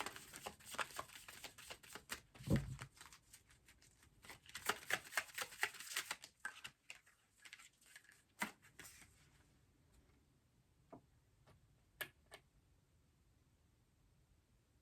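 Tarot cards being shuffled and handled: a dense run of quick card clicks and rustles for the first six or seven seconds, with a soft thump about two and a half seconds in, then a few scattered clicks as the handling slows.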